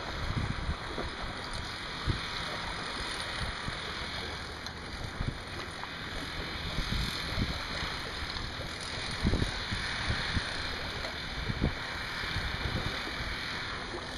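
Wind gusting across the microphone in irregular low rumbles, over a steady wash of seawater.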